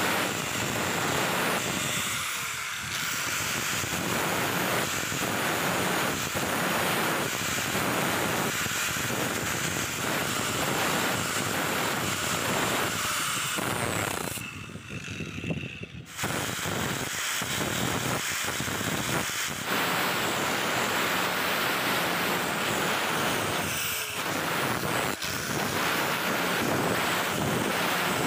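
Angle grinder with an abrasive disc grinding the steel jaw of a rusty pliers half, a steady grinding noise that dips briefly about halfway through.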